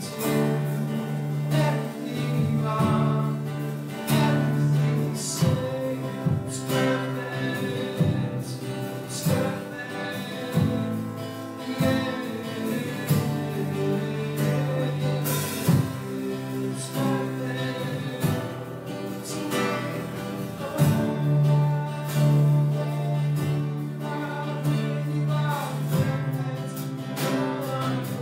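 Live church worship band playing and singing a song: several voices singing together over guitar, keyboards and a drum kit, with long held low notes and steady drum beats.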